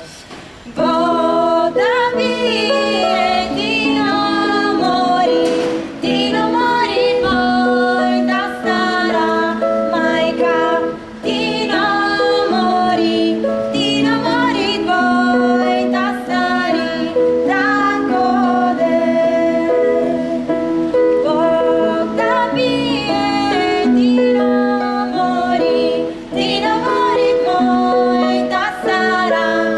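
Music played live: a sung melody with instruments over a steady low held note, starting about a second in.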